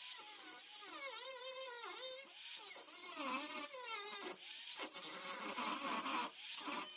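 Small electric angle grinder cutting through rusted nuts and studs. Its motor whine rises and falls in pitch over a hiss of grinding.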